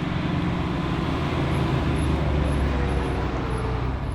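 Motor vehicle engine running with a steady, loud low rumble, with a few faint short high chirps over it.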